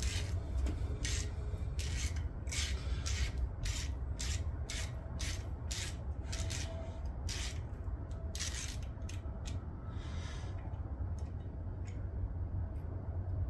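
Quarter-inch drive ratchet working a thread tap in an engine block bolt hole: short rasping ratchet strokes about two a second, thinning out after about nine seconds, over a steady low hum.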